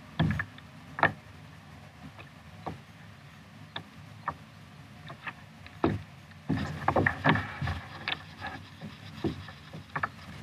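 Small waves lapping and slapping against a plastic sit-on-top kayak's hull in scattered, irregular knocks over a low steady hiss, with a busier run of knocks a little past the middle.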